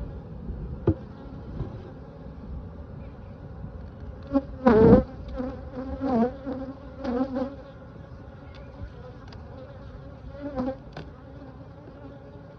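Honeybees buzzing steadily around an open hive, with louder swells as single bees fly close by, the strongest about five seconds in.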